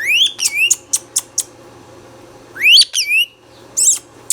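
Indian ringneck parrot giving whistled calls: a rising, sweeping whistle at the start, a quick run of short sharp chirps, another rising whistle near three seconds, and two brief high chirps just before the end.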